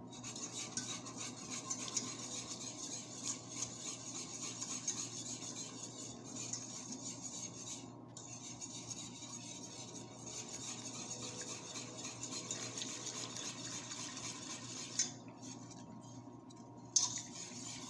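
Milk being stirred into a butter-and-flour roux in a pan for a béchamel: a utensil scraping and clicking steadily against the pan, with a brief pause about eight seconds in and a longer one near the end.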